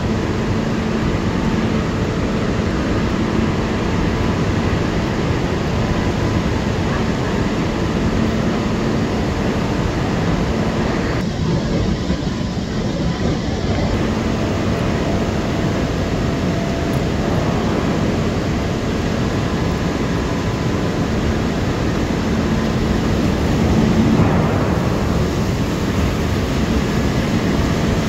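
Overhead grab crane running in a steel plant bay: a steady, loud mechanical rumble with a low hum under it as the clamshell grab is moved over the bunker. The upper part of the noise drops away briefly near the middle.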